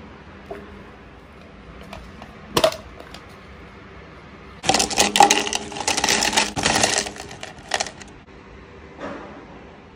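Ice cubes poured from a plastic bag into a plastic cup, clattering densely for about two and a half seconds. There is a single sharp click a little before the ice goes in.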